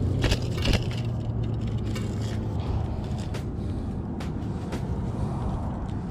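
Clicks and light rattles of a hard-plastic minnow lure and its hooks being worked free from a snook's mouth by hand, loudest in the first second. Underneath is a steady low motor hum that fades after about three seconds.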